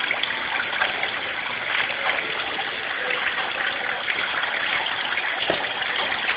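Small decorative water fountains running, a steady trickling splash of falling water.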